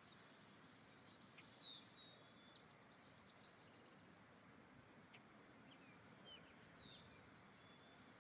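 Faint wild birdsong: several short high chirps and whistles, a fast buzzy trill in the first half, and one sharp chip a little over three seconds in, with a second cluster of calls near the end, over a steady outdoor background hiss.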